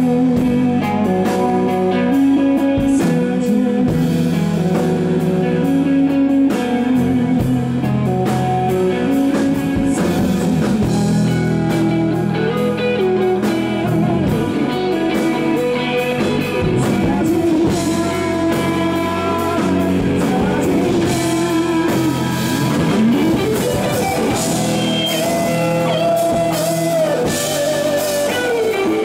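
Rock band playing live: electric guitar over bass and drum kit, with bending pitched lines in the second half.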